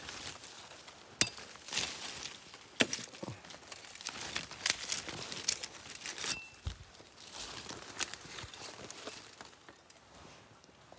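Footsteps crunching through dry leaf litter and twigs in the forest, with irregular sharp cracks and snaps.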